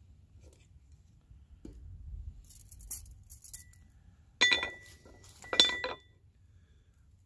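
Two metallic clinks about a second apart, each leaving a short bright ring, with a little handling rustle just before.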